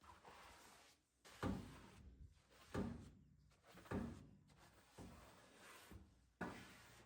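A run of soft knocks and thuds, five or so about a second apart, each fading quickly, as things are handled in a kitchen.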